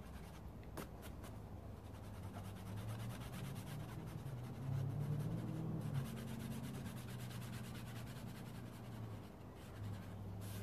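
Brown oil pastel scraping and rubbing across paper as a drawn dog is coloured in, with a steady low hum underneath.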